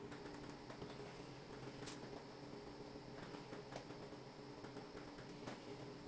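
Faint steady motor hum from a collaborative robot arm on a mobile base as it moves, with scattered light clicks and ticks.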